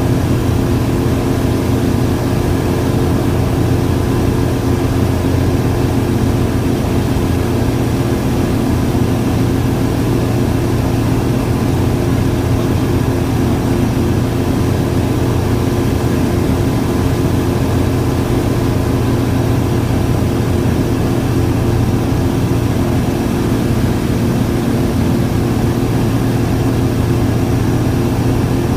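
Light aircraft's engine and propeller running steadily in level flight, heard from inside the cabin: an even, unchanging hum.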